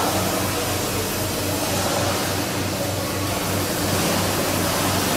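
Milking parlour machinery running: a steady hiss with a regular low pulsing about three times a second.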